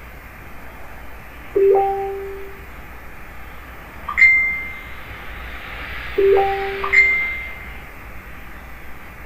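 Four short ringing chime tones, each fading out over about a second, alternating a low note and a high note: low, high, low, high.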